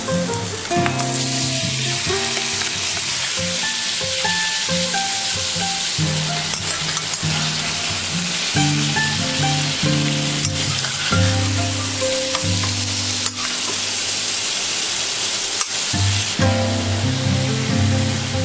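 Cubed chicken sizzling in hot oil in a stainless steel wok, the sizzle growing louder about a second in, with a few sharp clicks of the spatula against the metal as it is stirred.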